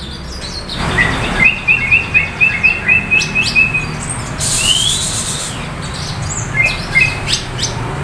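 Caged songbirds calling: a quick run of about ten short, evenly spaced chirps in the first few seconds, a rising note with a short hiss around the middle, and a few more chirps near the end.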